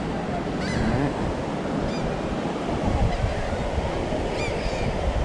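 Steady wash of surf and wind on the microphone, with a few brief, wavering high-pitched calls in the background, about a second in and again near four and a half seconds.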